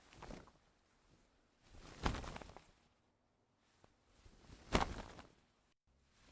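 Sail cloth flapping in the wind: separate short, noisy flaps, the loudest one about two seconds in and another just before five seconds, each starting with a sharp snap and trailing off.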